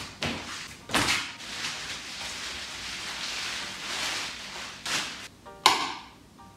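A large flat cardboard sheet slapping down onto a laminate floor about a second in, followed by a few seconds of rustling, then a bundle of plastic sheeting dropped onto the cardboard with a couple of thuds near the end.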